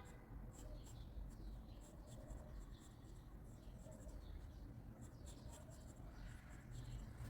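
Pencil scratching on paper in many short, quick strokes, faint.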